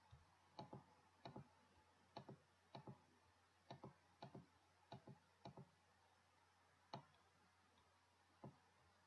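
Computer mouse button clicking: about ten sharp clicks, most in quick press-and-release pairs, at uneven intervals, then a lone click near the end. The background is otherwise near silent.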